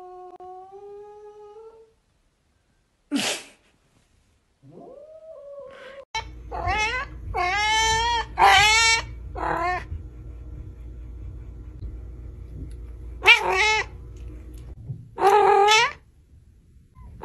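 A cat's long, steady yowl that ends about two seconds in, then a run of about five high meows sliding up and down in pitch, followed by two more meows near the end.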